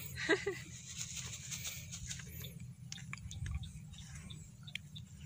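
Quiet outdoor ambience: a low steady rumble with faint scattered ticks, and a brief voice sound about a third of a second in.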